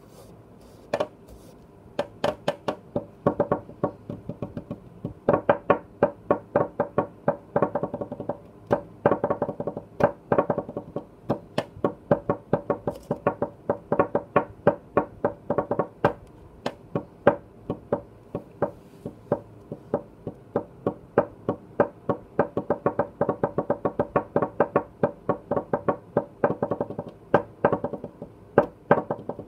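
Fingers drumming on a tabletop, tapping out a lion dance drum rhythm: quick runs of taps broken by louder accented strokes, starting about a second in.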